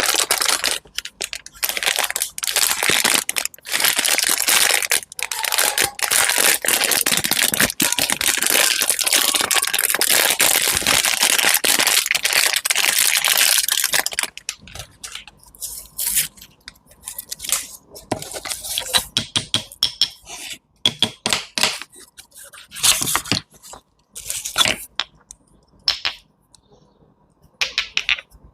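Close-up crunching and crackling as something is cut and crushed by hand: dense and continuous for about the first half, then breaking into scattered sharp cracks and clicks with short pauses.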